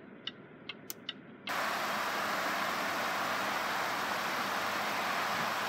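A few faint ticks of a 2016 Land Rover LR4's turn-signal indicator in the quiet cabin. About a second and a half in it gives way abruptly to a loud, steady hiss of wind on the microphone outdoors.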